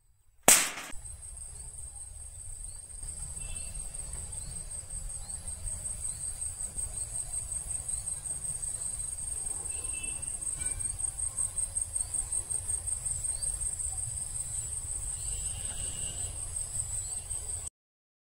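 Insects, crickets or cicadas, trilling in a steady high buzz that pulses about four to five times a second. A low rumble sits underneath, and there are a few faint chirps. A sharp click about half a second in is the loudest moment, and the sound cuts off suddenly near the end.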